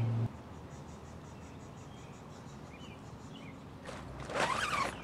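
Quiet outdoor ambience: a faint high insect trill pulsing about four times a second, with a few short bird chirps. A loud low steady hum cuts off abruptly just after the start, and a louder short sound with a sliding pitch comes near the end.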